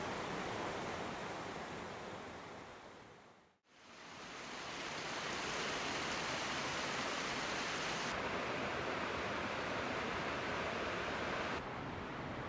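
Steady rushing noise with no distinct events. It fades out to silence a few seconds in and fades back up, then its tone changes abruptly twice near the end.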